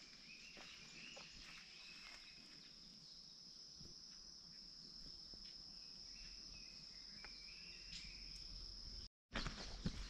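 An insect's steady high-pitched trill, with faint footsteps under it. It cuts off suddenly about nine seconds in.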